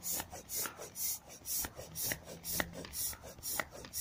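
Air pump forcing air through its hose into a vinyl inflatable ride-on toy, with a rhythmic hiss about twice a second as the toy fills.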